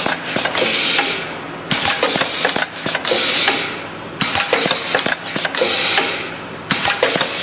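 Automatic steel clipping machine for car filters running in cycles: a cluster of clattering metal clicks and knocks as the steel strip is fed and clipped, then a fading hiss of pneumatic exhaust. The cycle repeats about every two and a half seconds, three times over.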